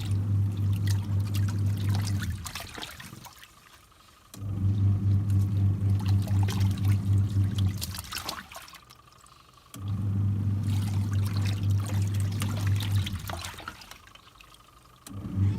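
Twin-tub washing machine's wash motor humming in runs of about three seconds with pauses of about two seconds between, as the pulsator agitates in one direction, stops and reverses. Water sloshing and trickling in the wash tub.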